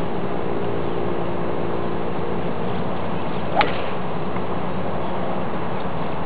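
A golf club striking a ball in a full swing: a single sharp crack about three and a half seconds in, over a steady background hiss.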